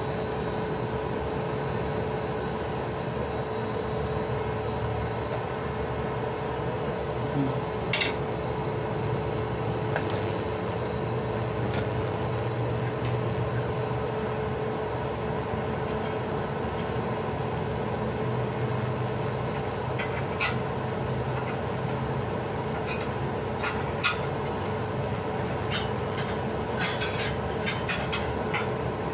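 Induction cooktop running with a steady fan hum and a thin high whine. A few light clicks and knocks come from the lidded pot being handled.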